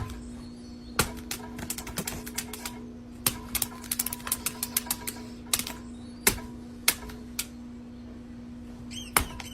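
An irregular run of sharp clicks and taps, bunched most closely in the middle, over a steady low hum.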